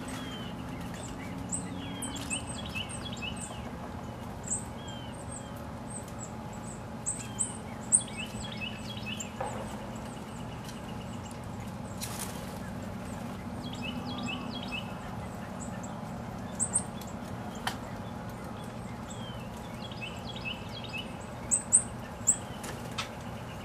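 Songbirds singing: a short trilled phrase repeated about every six seconds and scattered high thin chirps, over a low steady hum. A few sharp clicks of dry leaf litter as an American robin roots through it, the loudest about eight seconds in and three in quick succession near the end.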